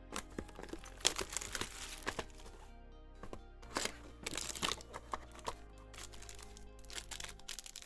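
Trading card pack wrappers crinkling and crackling in the hands as packs are torn open and cards handled, in many short sharp crackles, over steady background music.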